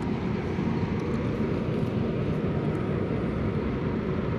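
Large car ferry's engines running, a steady low rumble with a faint hum over it.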